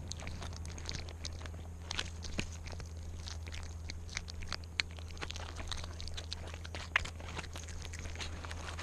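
Cat chewing and crunching a mouse right at the microphone: a run of irregular crunches and clicks, several a second, with a few sharper crunches along the way.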